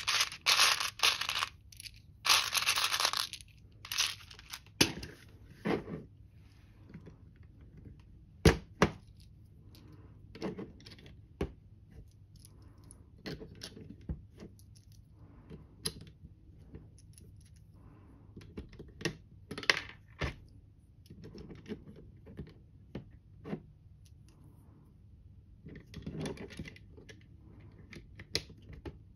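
Small plastic LEGO pieces clattering as fingers rummage through them in a tin tray for the first few seconds. After that come scattered sharp clicks as LEGO bricks are pressed and snapped together, with another short burst of clatter near the end.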